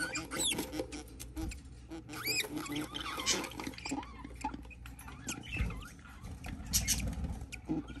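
Short squeaky budgerigar chirps, several rising and falling, over scratching and rustling of wood shavings as the hen shifts about the nest box and climbs out.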